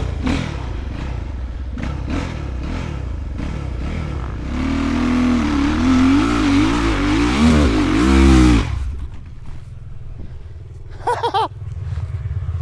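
Enduro motorcycle engine revving in repeated rises and falls, then held at higher revs for about four seconds with its pitch wavering up and down, and cutting off abruptly. A lower steady engine hum follows, with a short high wavering sound near the end.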